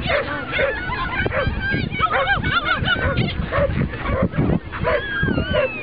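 Several dogs barking and yelping, with rapid, overlapping high-pitched calls several times a second.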